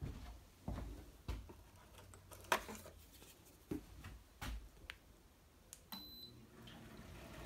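Scattered light knocks and clicks in a small room, about a dozen, the sharpest about two and a half seconds in. A faint low hum comes in near the end.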